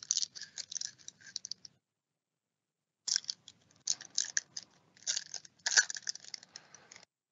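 Foil wrapper of an Upper Deck Artifacts hockey card pack crinkling and tearing as it is ripped open by hand. The crackling comes in two spells with a pause of about a second between, the loudest crackle near the end.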